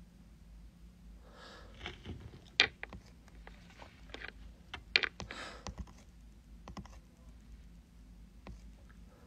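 Scattered light taps and clicks close to the microphone, two of them sharp and much louder about two and a half and five seconds in, with a couple of short soft rustles between.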